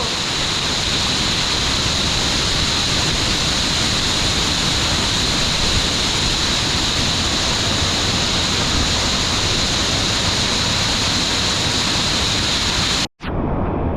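A waterfall's loud, steady rush of water. The sound drops out abruptly for a moment near the end and comes back duller, with less treble.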